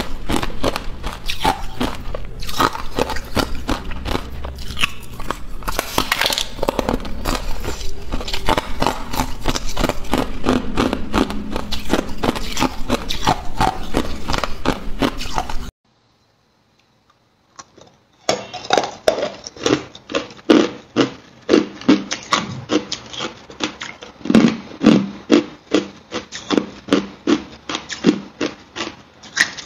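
Hard ice being bitten and chewed close to a clip-on microphone: rapid, sharp cracking and crunching. About halfway through it stops for roughly two seconds, then the crunching starts again.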